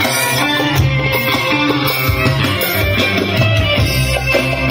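Music with plucked strings and strong bass played loudly through a PA system of large speaker cabinets driven by an Ashley LM-12 mixer.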